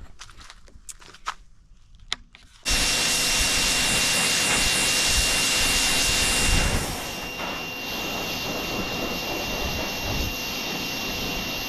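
A pressure washer starts abruptly about three seconds in and runs steadily, a loud spraying hiss with a thin high whine over it; about seven seconds in the hiss drops back and it carries on running more quietly.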